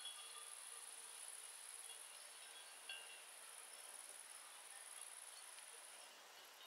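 Faint, steady, high-pitched trilling of insects such as crickets, which cuts off suddenly about six seconds in.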